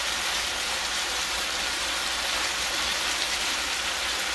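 Sliced beef sizzling steadily in a hot frying pan, a constant hiss of frying while it is stirred.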